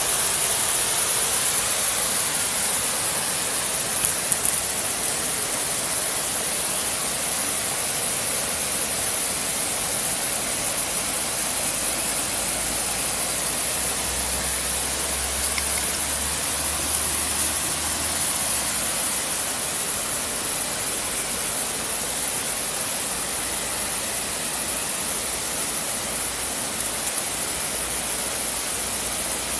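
Steady rushing of flowing river water, even and unbroken, with a couple of small knocks about four seconds in.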